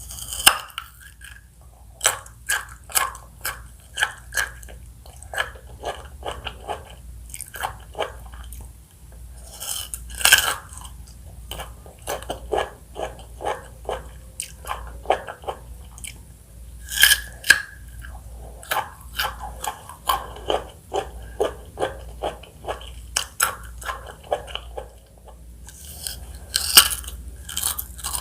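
Close-miked biting and chewing of fresh fruit: four loud bites, one near the start, one about ten seconds in, one about seventeen seconds in and one near the end, each followed by a run of chewing strokes at about two a second.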